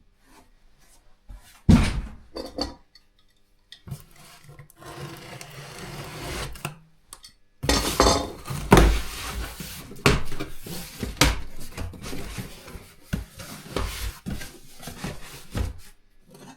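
Unpacking a small cardboard box of diesel heater kit parts: a sharp knock, a few seconds of cardboard and plastic rustling, then a run of clinks and knocks as the parts are handled.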